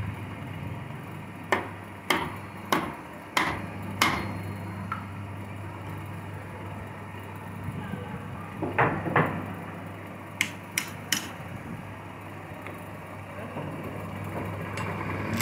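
A series of sharp knocks, like hammer blows on wood: five evenly spaced about half a second apart, two more near the middle and then three quicker, lighter clicks, over a low steady hum.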